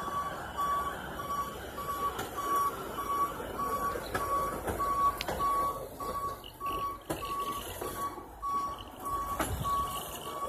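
Back-up alarm of a hi-rail pickup truck beeping evenly, about two beeps a second, as the truck reverses along the rails, over the low noise of the truck running on the track. A few sharp clicks are heard along the way.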